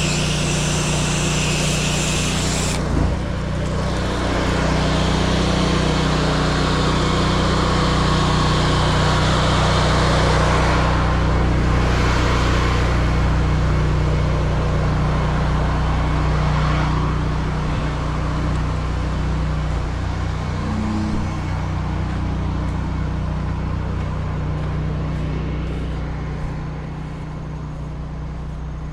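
Pressure washer engine running steadily under the hiss of the high-pressure water spray. The hiss changes as the jet moves over the surface, thinning sharply about three seconds in.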